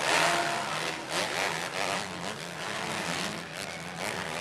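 Motocross dirt bike engines racing, their pitch rising and falling as the riders work the throttle and shift.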